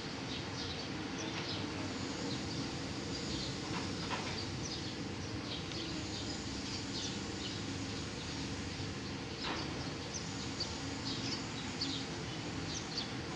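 Steady low machine hum from a jet fuel tanker being unloaded through a bottom-connected hose, with small birds chirping over it throughout.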